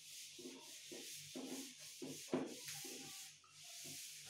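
Faint rubbing of a felt board duster wiping chalk off a chalkboard in repeated strokes, roughly two a second.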